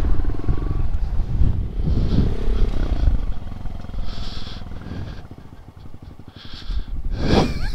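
Honda Monkey 125's single-cylinder four-stroke engine running at low speed, going quieter for a moment about six seconds in and then picking up again.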